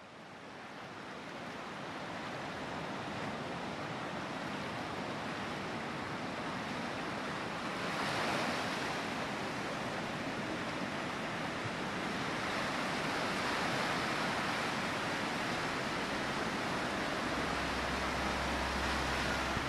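A steady rushing noise fades in over the first couple of seconds and swells briefly about eight seconds in. A low hum joins near the end.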